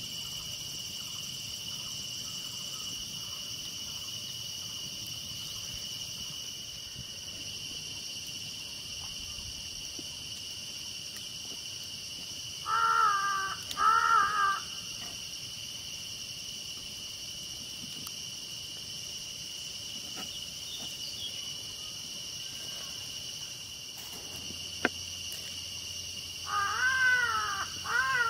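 Steady high-pitched insect drone, broken twice by a pair of short, rising-and-falling animal calls, about halfway through and again near the end.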